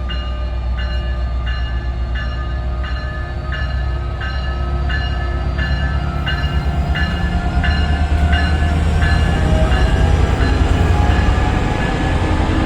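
NJ Transit train's bell ringing steadily, about three strikes every two seconds, over the low rumble of the train. A faint whine rises slowly in pitch through the second half.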